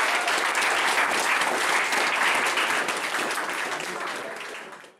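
Audience applauding steadily, with many hands clapping at once, then fading out over the last second.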